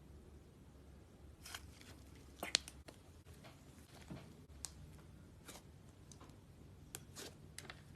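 Slime being handled: faint, scattered clicks and crackles, the loudest about two and a half seconds in.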